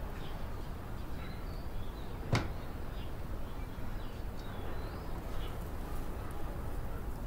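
Outdoor ambience: faint bird chirps over a steady low rumble, with one sharp knock a little over two seconds in.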